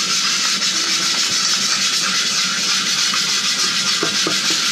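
Chainmail scrubber scraping across a hot wok with a little water on it: a steady sizzling hiss with a rasp of metal on metal, as stuck-on food is scrubbed off the pan.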